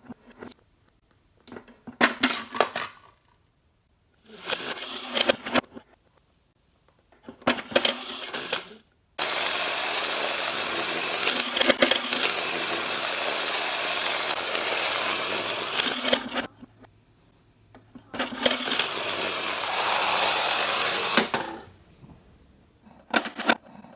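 Plastic toy vehicles and a plastic toy garage being handled on a wooden floor: bursts of clicking and clattering, then a steady whirring rattle that starts abruptly about nine seconds in and runs for about seven seconds, with a shorter one a little later.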